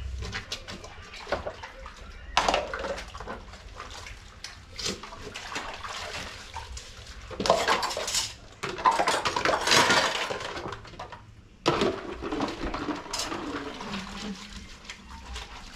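Water splashing and pouring, with clinks and knocks of dishes and utensils, loudest in a few bursts past the middle.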